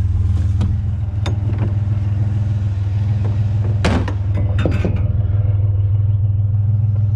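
Pickup truck engine idling with a steady low drone, and a few short metal clanks as pieces of a canopy frame are handled, the loudest about four seconds in.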